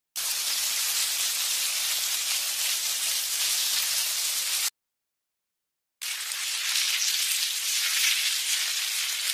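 Amplified recordings played as ant sounds, first of army ants and then of an ant colony: a dense crackling hiss, like frying or rain. It runs for about four and a half seconds, breaks off into a silence of just over a second, then starts again.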